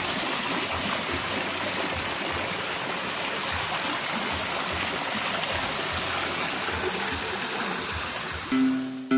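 Water from a small stone garden waterfall splashing steadily, thin streams falling from a rock ledge into a pool. Near the end, plucked-string music begins over it.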